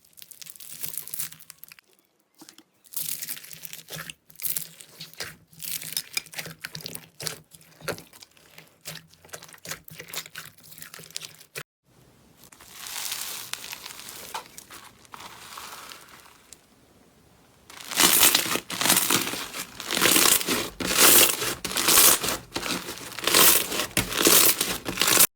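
Slime being squeezed and worked by hand, giving dense crackling, crunchy clicks in separate stretches. The loudest and densest crackling comes in the last seven seconds or so.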